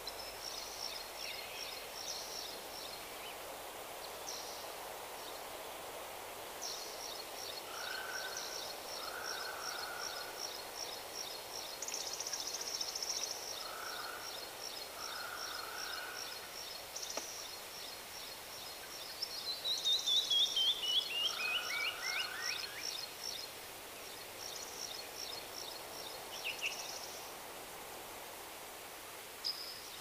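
Birds calling over a steady background hiss: a long, rapid high trill, a few short lower calls, and, loudest, a quick run of notes falling in pitch about twenty seconds in.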